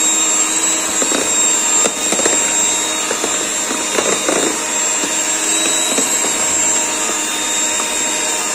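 Electric hand mixer running steadily with a high whine, its twin beaters whipping sponge cake batter.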